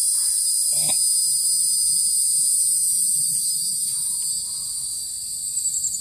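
Loud, dense night chorus of cicadas: a steady high-pitched shrill buzz from many insects at once, with a slight pulsing near the end.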